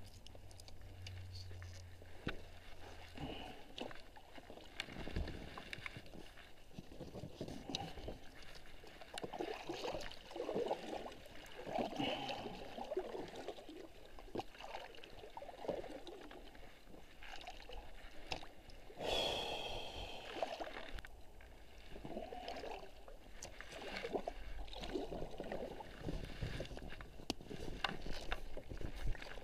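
Double-bladed paddle strokes dipping and pulling through the water beside an inflatable packraft, repeating every second or two. About nineteen seconds in there is a brief, louder burst of noise.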